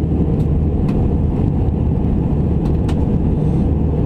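Airbus A319 cabin noise in flight: a steady low rumble of the jet engines and airflow, with a few faint clicks.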